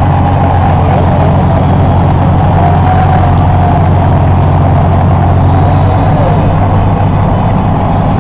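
Steady low rumble of heavy vehicle engines running close by, loud and unbroken, with crowd noise underneath.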